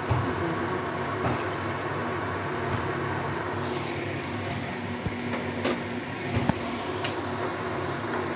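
Hot water poured into a kadai of fried chicken curry and potatoes, splashing steadily into the pan, with a few sharp knocks a little past the middle.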